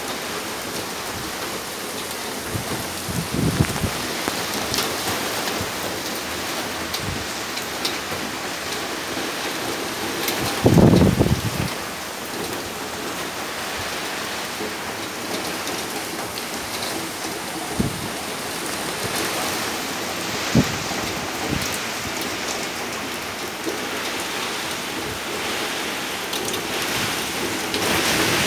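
Heavy typhoon rain pouring steadily, a constant hiss with a few sharp taps. A brief low rumble breaks through about eleven seconds in, and the rain swells louder near the end.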